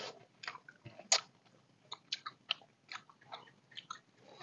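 Eating sounds: chewing and lip smacks with light clicks of spoons against plates, a dozen or so short sounds scattered with little between them, the sharpest a little after a second in.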